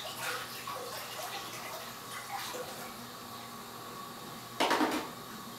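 Disc-detainer pick and tension tool working the discs of a small padlock: light metallic clicks and scrapes, with a louder short metal rattle about four and a half seconds in.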